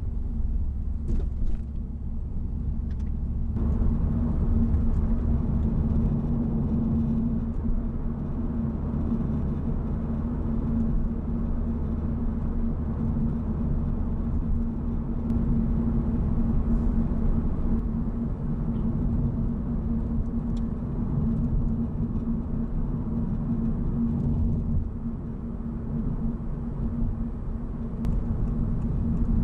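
Honda Civic Type R FL5 driving on the road: a steady low rumble of its 2.0-litre turbocharged four-cylinder engine and tyres with a constant low hum, swelling about three and a half seconds in and then holding steady.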